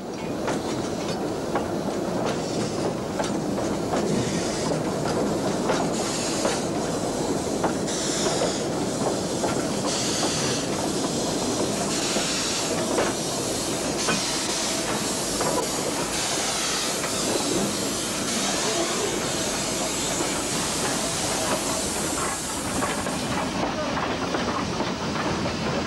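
Metre-gauge steam train hauled by a compound 2-4-6-0 Mallet tank locomotive, moving slowly: wheels click over the rail joints under a steady steam hiss that swells about every two seconds. The highest hiss falls away near the end.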